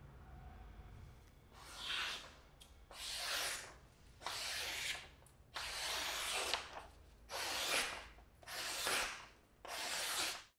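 Knife blade, made from an old file, slicing through a sheet of paper in a sharpness test: seven slicing strokes in a row, about a second apart, beginning about a second and a half in.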